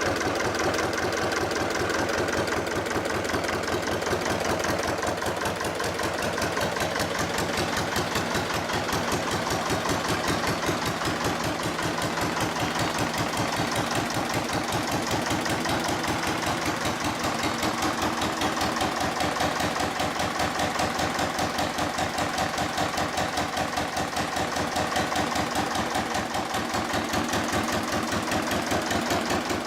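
Armstrong Siddeley AS2 two-cylinder air-cooled diesel engine running steadily at a low, even speed, its firing beats regular.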